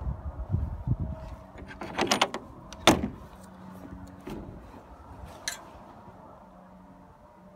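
Side door of a 1999 Eby trailer being unlatched and opened: a few dull knocks, then the latch handle rattling and a sharp metallic clack as the latch lets go. A lighter clank follows as the door swings.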